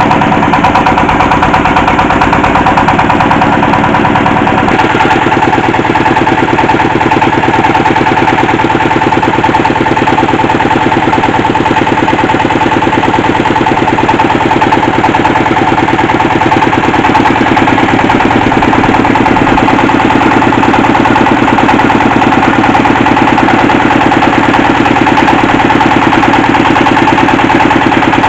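Engine powering a hydraulic well-drilling machine, running steadily and loudly. Its note shifts about five seconds in.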